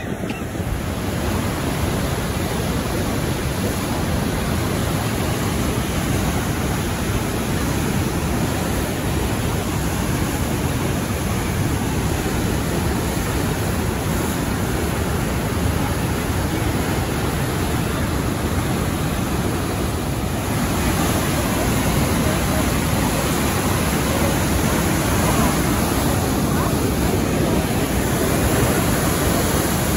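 Whitewater of a glacial river rushing through a narrow rock canyon and over falls: a steady, dense noise of water, a little louder after about twenty seconds.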